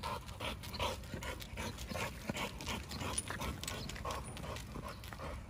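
Large dog panting in quick, even breaths, about three a second, as it trots beside a bicycle.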